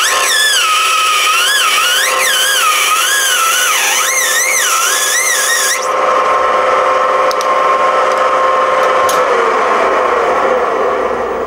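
Metal lathe turning a POM (acetal) plastic workpiece under a heavy, hand-fed cut, with a high, wavering squeal that stops about six seconds in. The spindle's steady hum then falls in pitch near the end as the lathe slows down.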